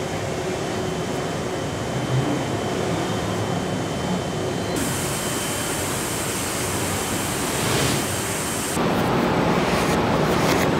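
Steady hum and hiss of an automotive body-shop production line, with no distinct mechanical strokes standing out. The background changes character abruptly twice, about halfway through and again near the end, and a faint high whine runs through the first half.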